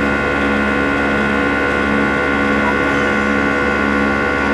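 Cabin noise inside an Airbus A319 climbing after takeoff: the steady drone of the jet engines and rushing air, with several steady humming and whining tones held throughout.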